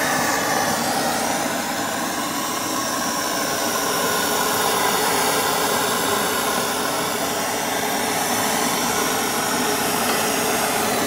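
Air-pressurised diesel burner of a homemade stove burning under a pot, with a steady, even rushing hiss from the fuel jet and flame. It works with no blower fan, the diesel being forced to the burner by air pressure in the tank.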